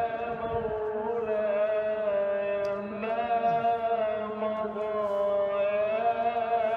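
A voice chanting in long held notes whose pitch wavers slowly up and down, in the style of an Islamic religious chant.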